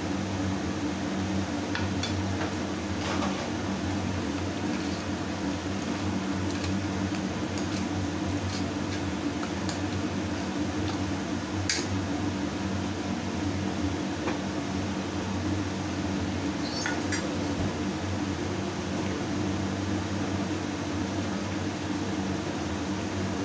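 Steady hum of an electric fan, with a few sharp metallic clinks of a steel ladle against an aluminium pressure cooker and utensils.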